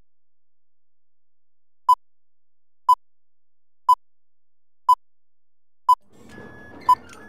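Film-leader countdown beeps: six short, identical high beeps, one each second, one per number as the countdown runs down. Silent before the first beep; a faint low rumble comes in under the last two.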